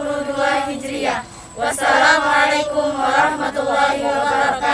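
A group of girls' voices chanting together in unison, in two sing-song phrases with a brief pause between them.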